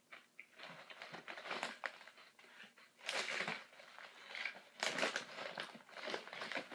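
Crunchy chewing of thin oven-baked crackers, then a foil-lined snack bag crinkling as a hand reaches into it, loudest in two bursts about three and five seconds in.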